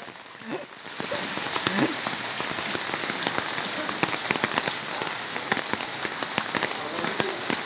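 Heavy rain falling onto a flooded street and into standing floodwater: a dense, steady hiss full of small sharp ticks from the drops. It gets louder about a second in.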